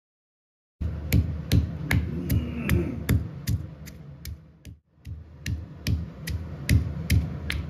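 Stone pestle pounding garlic in a stone mortar: a steady run of sharp knocks, about two and a half a second, starting about a second in, with a short break near the middle.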